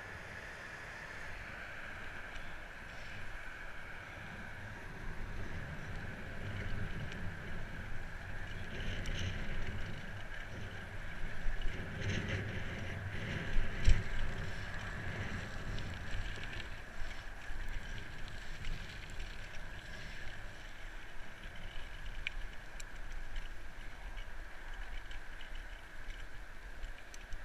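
Bicycle riding along a gravel towpath, heard from a GoPro Hero 3: a steady rumble of wind on the microphone with tyre and bike noise, and a couple of louder knocks from bumps in the path around the middle.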